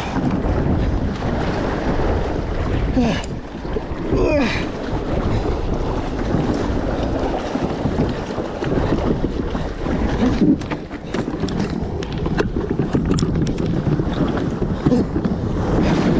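Strong wind buffeting the microphone, with choppy waves slapping and splashing around a small fishing kayak in rough water.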